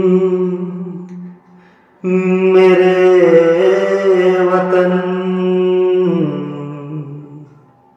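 A man singing a wordless, long-held intro into a microphone: one held phrase fades out a little over a second in, and a second long phrase starts about two seconds in and fades out near the end.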